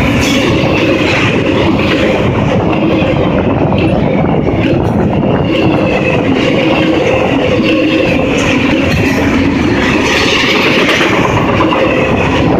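Double-stack intermodal freight cars rolling past close by: a loud, steady rumble of steel wheels on the rails with thin squealing tones wavering above it.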